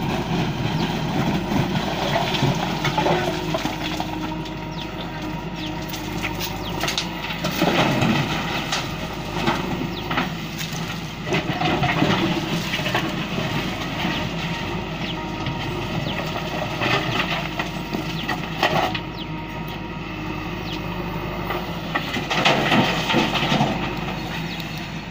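JCB backhoe loader's diesel engine running steadily, with several rounds of rocks clattering and thudding as they are loaded into a tipper lorry's steel bed.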